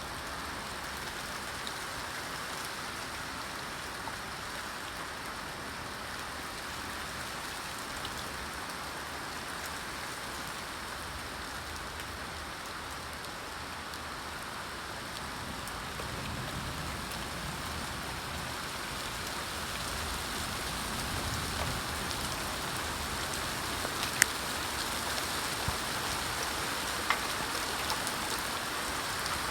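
Steady rain falling and pattering on surfaces, growing heavier in the second half, with a few sharp drip ticks near the end.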